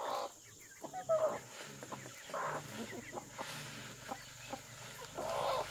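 Chickens clucking, with short calls scattered throughout.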